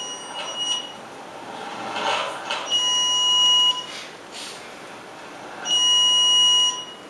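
Water-leak detector sounding its alarm: a high electronic beep about a second long, repeating roughly every three seconds, three times, the sign that the leak alarm has been triggered. A brief handling noise comes about two seconds in as the unit is picked up.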